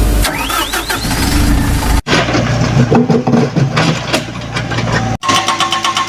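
Heavy-equipment diesel engine sounds in three short spliced clips: a rising rev, then the engine running under varying load, then a steady idle with a fast, even pulsing.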